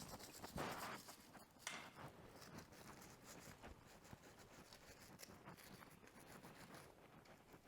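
Near silence: faint handling noises, with a couple of light knocks in the first two seconds.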